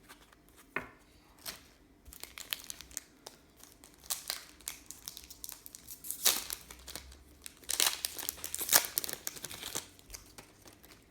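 Trading cards and plastic or foil packaging being handled: rustling and crinkling with small clicks throughout, and louder crackling bursts about six seconds in and again around eight to nine seconds.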